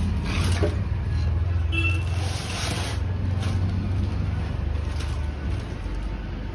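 Plastic packaging rustling and crinkling as pedestal-fan parts are handled, with a brief squeak about two seconds in, over a steady low rumble.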